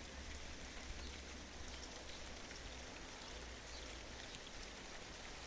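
Light rain starting to fall: a faint, steady patter with scattered raindrop ticks.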